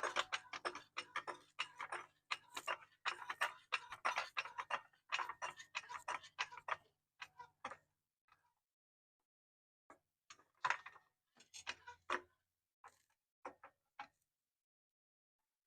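Hand ratchet clicking in quick, steady strokes for about seven seconds. After a pause, a few short runs of clicks follow.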